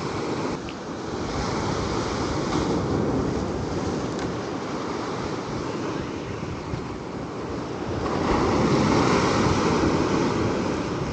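Ocean swell washing and breaking against a rock ledge, with wind buffeting the microphone; the surf swells louder about eight seconds in.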